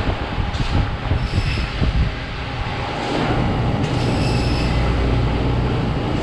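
Steady loud mechanical noise with a low hum, and brief high squeals about a second in and again around four seconds in.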